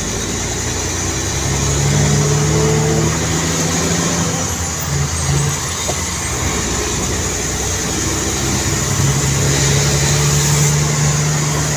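A vehicle's engine running while it is driven, heard from inside the cab over tyre and road noise. The engine hum holds steady and swells twice, about a couple of seconds in and again near the end.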